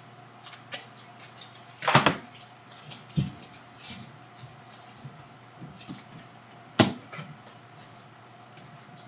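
Trading cards and rigid clear plastic top loaders being handled and sleeved on a table: scattered light clicks and plastic rustles. A sharper clack comes about two seconds in, a dull thump a moment later, and another sharp click near seven seconds.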